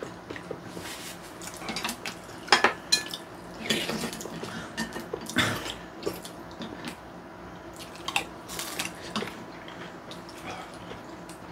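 Eating at the table: chopsticks and a fork clicking against bowls and plates, with several short, wet slurps of noodles.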